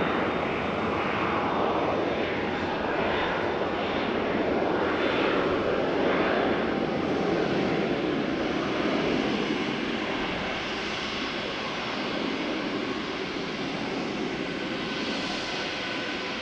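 Airbus A320-232's IAE V2500 jet engines running at taxi idle, a steady roar with a faint whine that slowly grows fainter.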